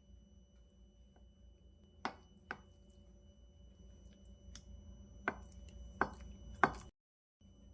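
Kitchen knife chopping on a cutting board: about five separate, unhurried strikes, with a pause between the first two and the last three.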